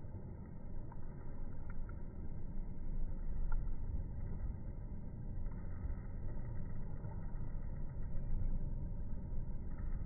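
Low, fluctuating rumble of outdoor background noise, with no call from the kingfisher.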